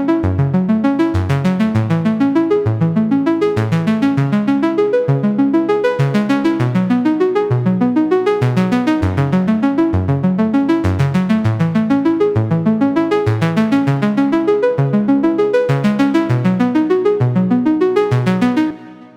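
Synthesizer arpeggio: a rapid, even run of repeated pitched notes cycling through a chord pattern, which stops near the end and dies away briefly.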